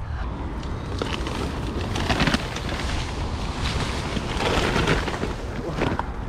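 Leaves and branches rustling and brushing against the camera as a person pushes through dense bushes, in several louder swells, over a steady low rumble.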